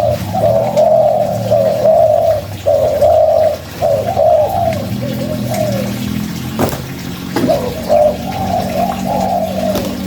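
Spotted dove (tekukur) cooing in a long string of arched coos. It pauses about six seconds in, with two short knocks in the gap, then takes up cooing again.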